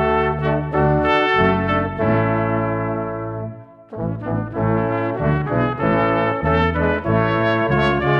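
Brass ensemble of trombone, French horn, trumpet and tuba playing a CCB hymn in held chords. The phrase fades out about three and a half seconds in, and a new phrase of shorter notes begins right after.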